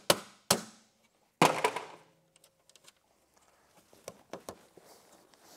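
Hand hammer striking metal on a snowmobile tunnel: three sharp blows in the first second and a half, the third ringing briefly, then a few faint taps and clicks.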